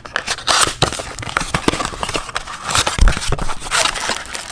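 Cardboard Panini Score blaster box being torn open by hand: flaps ripping and cardboard crackling in quick irregular snaps, with a thump about three seconds in.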